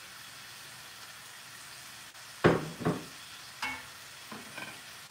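Chicken, broccoli and onion stir fry sizzling steadily in a frying pan. About halfway there are two loud clattering knocks of cookware, then a few lighter clinks of a utensil against the pan as it is stirred.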